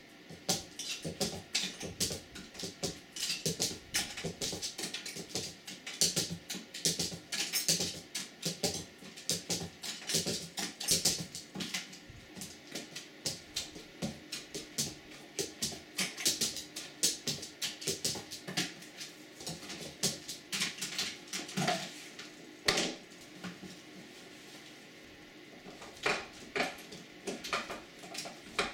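An Italian greyhound moving about on a cluttered wooden desk: a dense, irregular run of clicks, taps and knocks from claws on wood and things being bumped, with a few louder knocks.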